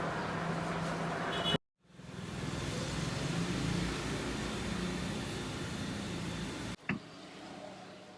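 Busy town street and shop background noise, a steady din with a low hum. It cuts out abruptly about one and a half seconds in and comes back, then drops to a quieter background after a click near the end.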